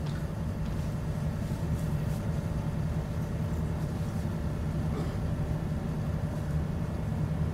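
A steady low hum of background room noise in a hall.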